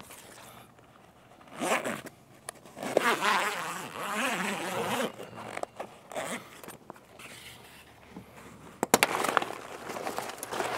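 Zipper on a roof-rack awning's storage cover being pulled open in several long runs with short pauses between, and a couple of sharp clicks near 9 seconds in.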